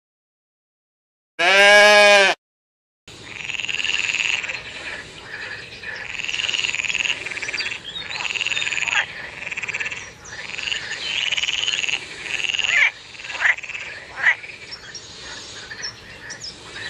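A goat bleats once near the start. After a short silence, a green water frog croaks in a long run of calls, each about a second long, repeating to the end.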